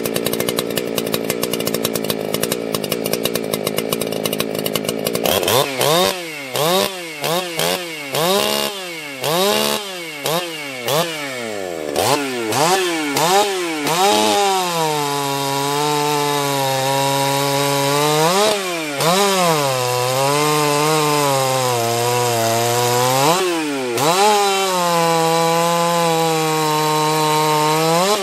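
Ported Husqvarna 272 chainsaw (a Husqvarna 61 built up with a 52 mm bore) idling, then revved in a string of quick throttle blips. About 14 seconds in it goes to full throttle cutting a log of about 12 inches in a down, up, down sequence: the engine note sags under load and briefly climbs twice as the chain comes free between cuts. Near the end it drops back toward idle.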